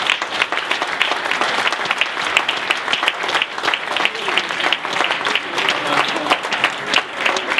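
An audience applauding: a roomful of people clapping steadily.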